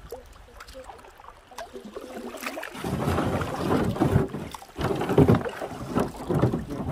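Canoe being paddled through a shallow riffle: water splashing and rushing around the paddle blades and hull. It gets louder about three seconds in and comes in surges roughly once a second.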